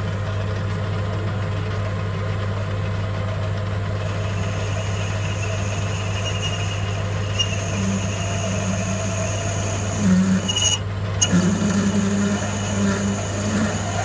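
Metal lathe running steadily while a 14.5 mm twist drill bores into the spinning bar stock. A higher cutting whine and chatter join about a third of the way in and grow louder and more uneven in the second half as swarf curls off the bit.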